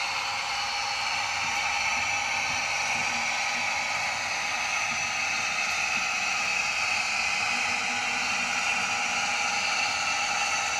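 Sound decoder of a Bachmann Class 55 Deltic model locomotive playing its diesel engine sound, running steadily through the model's small speaker: an even whir and hiss with little bass.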